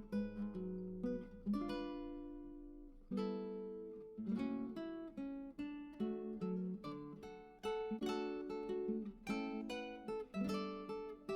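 Background music: acoustic guitar, plucked and strummed chords that ring and fade between strokes.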